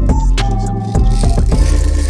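Background music with a steady drum beat, heavy bass and a high melody line that steps down in pitch.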